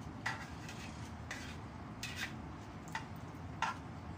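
Chopsticks stirring vegetables in a mixing bowl, with about five short, irregular taps and scrapes against the bowl.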